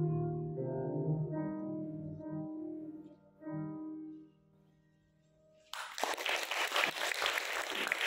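Upright piano playing the closing bars of a song accompaniment, ending on a final chord that dies away about four seconds in. After a second or so of near silence the audience breaks into applause.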